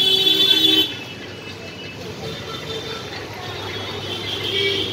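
A vehicle horn blares for about a second at the start, loud and high-pitched, over steady street traffic noise.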